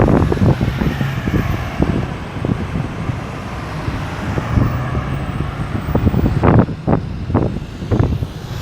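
Road traffic moving through a busy roundabout: car and truck engines and tyres making a steady rumble, with a few short, sharper noises near the end.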